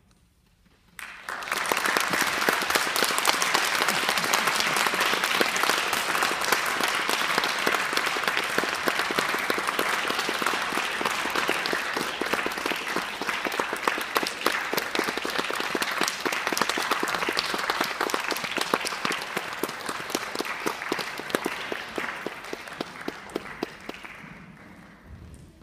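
Audience applauding, starting abruptly about a second in after a moment of quiet, holding steady and then dying away near the end.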